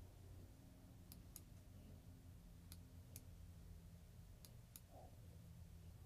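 Computer mouse clicked three times, each click a quick double tick of press and release, over a faint low hum.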